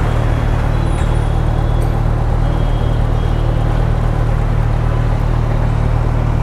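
Kawasaki Z1000SX (Ninja 1000) inline-four engine idling with a steady low hum, mixed with the noise of surrounding city traffic.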